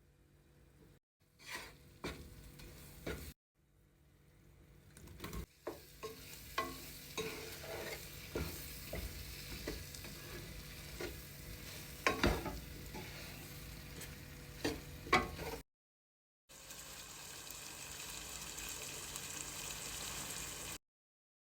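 Food sizzling as it fries in a pot and is stirred, with a utensil knocking against the pan again and again. The sound cuts off abruptly a few times, and near the end there is a steadier sizzle.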